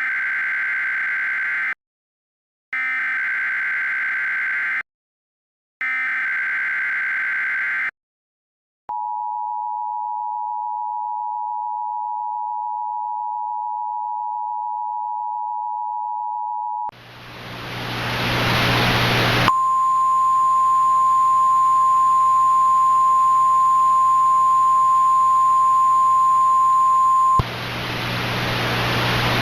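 Emergency Alert System tones: three short screeching bursts of header data, then the steady two-tone attention signal held for about eight seconds. Hiss then swells in, and a single steady warning tone like the NOAA Weather Radio alert sounds over it for about eight seconds before cutting off, leaving the hiss.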